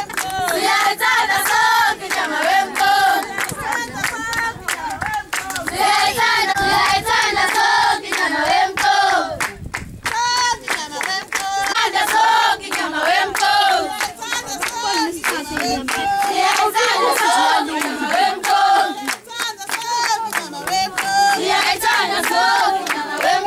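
A group of women and girls singing together in unison with steady rhythmic hand clapping. The singing breaks off briefly about ten seconds in, then resumes.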